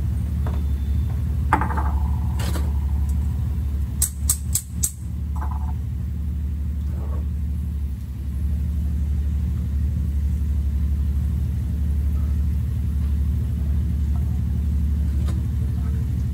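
Steady low rumble throughout, with four quick sharp knocks about four to five seconds in, a metal spatula rapped against a frying pan, and a few lighter clinks of utensils on cookware.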